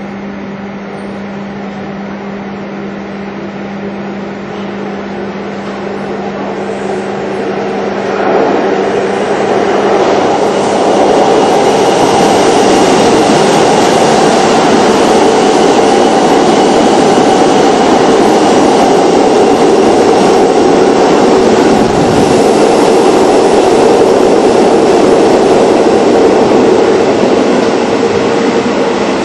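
Kintetsu limited express train running through an underground station without stopping. Its running noise grows from about six seconds in, turns into a loud roar of wheels and motors that lasts some fifteen seconds, and eases off near the end, echoing strongly off the station walls.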